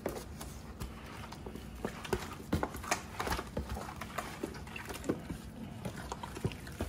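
Gloved hands squeezing and turning raw chicken coated in wet jerk marinade in a plastic tub: irregular wet squelches and smacks, several a second.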